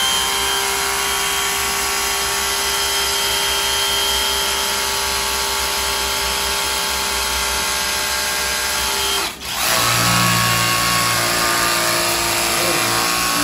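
A cordless 36-volt brushless pressure washer running, its pump drawing water from a bucket and spraying: a steady motor whine over the hiss of the jet. About nine seconds in it cuts out for a split second and starts again, now with a lower hum added.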